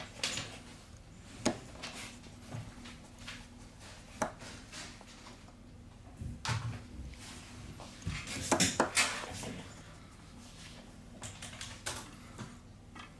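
Small scattered clicks and taps of a precision screwdriver and small metal and plastic smartphone parts being handled on a work surface, with a quick run of sharper clicks about eight and a half seconds in, over a faint steady hum.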